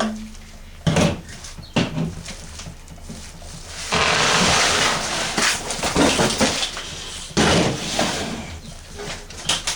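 Packaging being handled during unboxing: several knocks and thuds, with a longer stretch of scraping and rustling about four seconds in.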